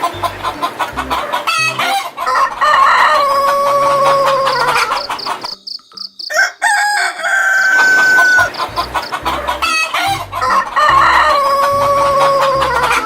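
Rooster crowing three times, each crow ending in a long held note that sags at the end; the middle crow is higher-pitched. Chickens cluck between the crows.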